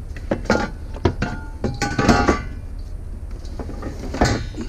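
Knocks and clatter of a Roku flat-screen TV being slid and pushed into a car, knocking against things inside, with a short scraping squeak about two seconds in and another knock near the end.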